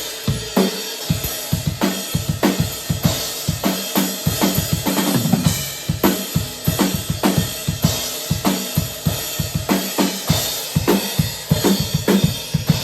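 Drum-heavy rock mix playing: a full drum kit with kick, snare and cymbals in a steady, busy beat, with a little guitar underneath.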